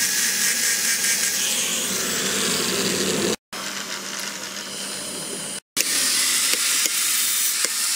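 Angle grinder with a sanding disc running against the billhook's handle, a steady hissing whine. It cuts off abruptly about three seconds in, giving way to a quieter steady noise and then, after another abrupt cut, louder noise with scattered light ticks.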